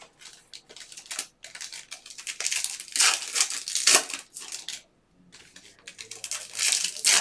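Foil trading-card pack wrappers crinkling and crackling as they are handled and opened by hand, in irregular bursts with a brief pause about five seconds in.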